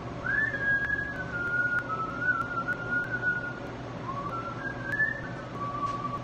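A man whistling a wavering tune by mouth, in a few long phrases with a short break in the middle.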